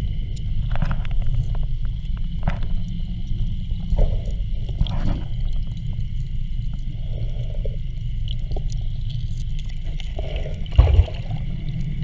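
Heard underwater: the running Keene 4-inch single-stage gold dredge as a steady low rumble, with stones clicking and knocking as gloved hands dig gravel out of a bedrock crack. A heavy thump comes near the end.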